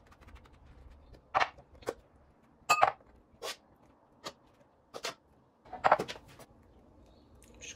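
A metal spoon clinking and knocking against glass dessert bowls as whipped cream is spooned in: a string of separate clinks, one with a short glassy ring about three seconds in.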